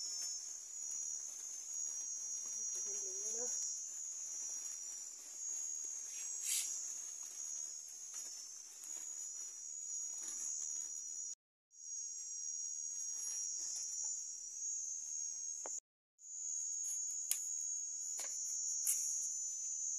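A steady, shrill chorus of insects chirring high in pitch. It cuts out abruptly twice, briefly, in the middle and later on. A few light clicks from handling are heard over it.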